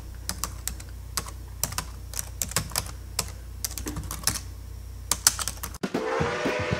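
Computer keyboard typing sound effect: quick, irregular key clicks, about four a second, over a low steady hum, matching text being typed out on screen. It cuts off about six seconds in, and music starts with a held note and a clopping beat.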